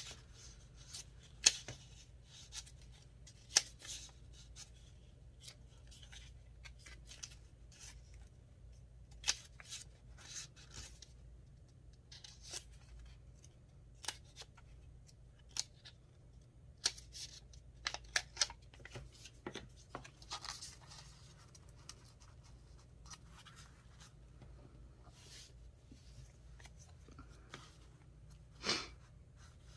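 Paper pieces being handled and laid down on a journal page: scattered short rustles and taps, with a longer rustle near the end.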